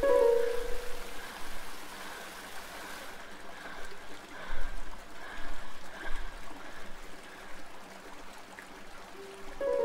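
Running, trickling water with soft swells. A held tone fades out in the first second or so, and another held tone comes in near the end.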